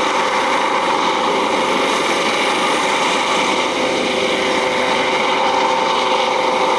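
U.S. Coast Guard MH-65 Dolphin helicopter hovering, its twin turbines and shrouded tail rotor giving a loud, steady whine over the rotor noise.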